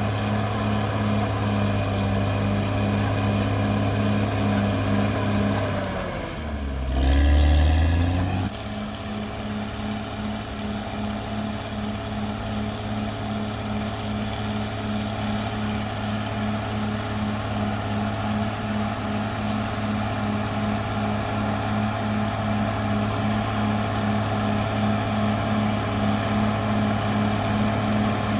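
CAT D6R XL bulldozer's diesel engine running steadily, with a regular pulsing in its note. About six seconds in, the engine note drops and a louder, deeper sound lasts about two seconds before the steady running returns abruptly.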